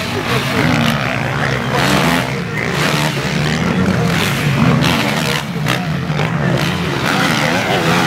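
Several MX1 motocross bikes race past one after another, their engines revving up and down continuously as the riders work the throttle.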